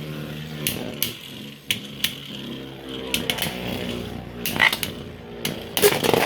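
3D-printed Beyblade spinning tops whirring in a stadium, with sharp clacks several times as they strike each other, the loudest a little before the end.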